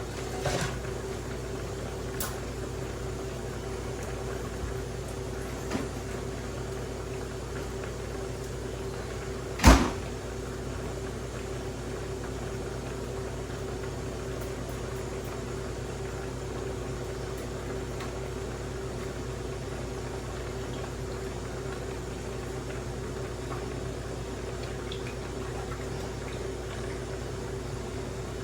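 Steady mechanical hum with one clear tone, broken by a few light clicks and one loud sharp knock about ten seconds in.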